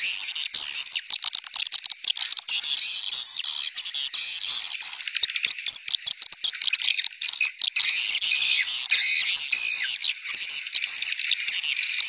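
Swiftlet lure call: a dense chorus of rapid, high twittering chirps from many swiftlets, nearly unbroken, of the kind played at swiftlet houses to draw swiftlets in to roost.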